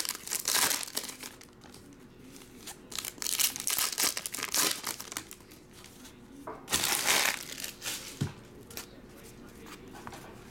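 Foil trading card pack wrappers crinkling and tearing as packs are ripped open by hand, in several rustling bursts, the loudest about seven seconds in.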